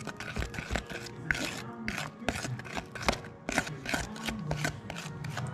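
A spoon scraping and clicking against a plastic bowl in quick, irregular strokes while stirring a thick toothpaste and baking soda paste into slime.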